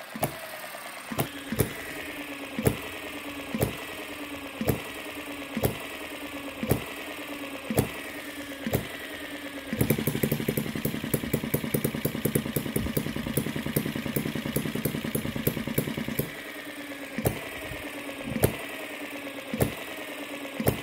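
Retrol HM-01 7 cc four-stroke horizontal model hit-and-miss engine running, firing with a sharp pop about once a second and coasting on its flywheels in between, a falling whir under each coast. About halfway through, a faster steady clatter replaces the single pops for several seconds, then the once-a-second firing resumes: typical hit-and-miss governing, where the engine fires only when its speed drops.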